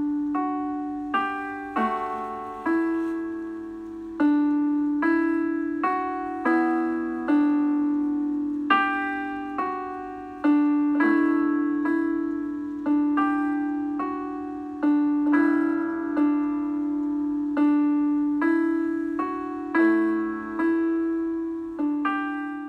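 Background piano music: slow chords struck about once a second, each left to ring down, over a steady low held note.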